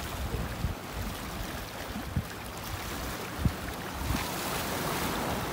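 Wind buffeting the microphone in irregular low thumps, over a steady wash of small waves breaking on the rocks below the seawall.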